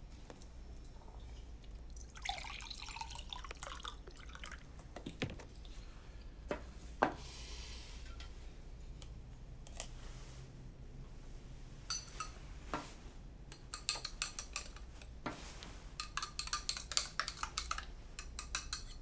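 Kitchen sounds of a glass of chocolate milk being made: milk poured into a glass twice, then a run of light clinks of a spoon against the glass, coming quickly near the end.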